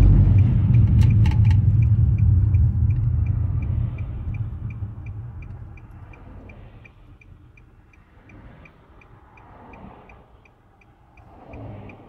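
Car engine and road rumble dying away over the first six seconds as the car slows and stops to turn around. From about two seconds in, the turn-signal indicator ticks steadily, about two ticks a second.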